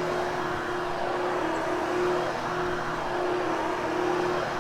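Vacuum cleaner running steadily while grooming a freshly cleaned carpet, its motor hum wavering slightly now and then as it is pushed.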